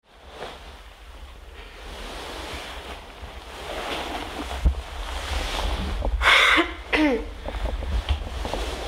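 Steady low rumble and hiss of room noise fading in. About six seconds in, a person makes a short breathy exhale, then a brief vocal sound falling in pitch, like a sigh.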